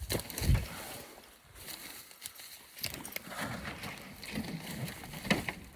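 Footsteps crunching and rustling through broken branches and debris on the forest floor, with scattered twig crackles and a low thump about half a second in.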